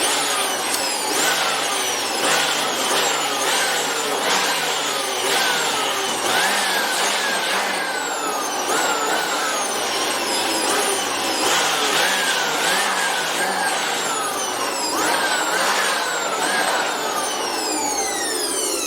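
Makita blower running and blowing dust out of a printer. Its motor speed repeatedly climbs and drops as the trigger is squeezed and eased, and it winds down near the end.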